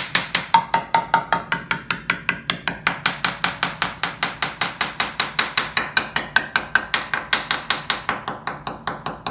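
Rapid, even tapping on a Lancair's composite layup, about five to six taps a second, in a tap test for voids and delamination. Some stretches of taps carry a brief ring, near the start and again about two-thirds of the way through; the tap's tone is what marks the layup as sound or unsound.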